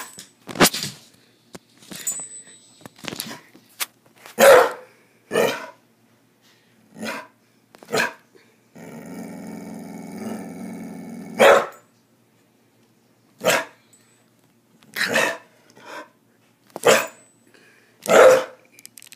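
Pit bull-type dog barking at the camera, about a dozen loud single barks one to two seconds apart, with a long low growl of about three seconds in the middle.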